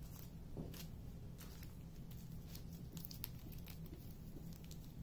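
Faint crinkling and scattered light clicks of small plastic zip bags full of resin diamond painting drills being handled and moved, over a low steady background hum.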